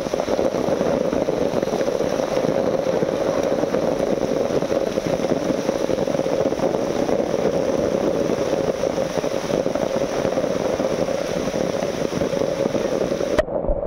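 Steady rushing of heavy rain and running water, with no break until an abrupt change near the end, where the hiss loses its upper part.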